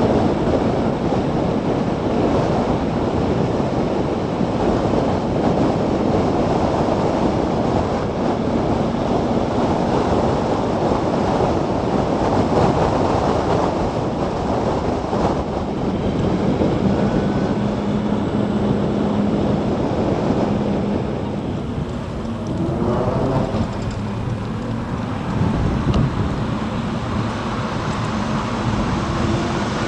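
Steady wind rush buffeting the microphone of a camera mounted on a Zero DSR electric motorcycle riding at speed. A brief rising whine comes about two-thirds of the way in.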